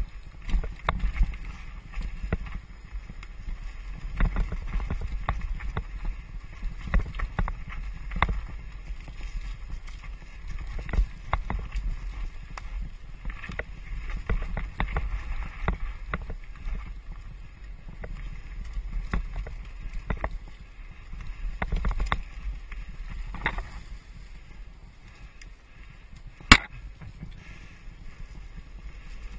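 Mountain bike rolling fast down rough dirt singletrack: a steady low rumble with constant rattling and knocks from the bike over the bumps. One sharp, loud knock comes near the end.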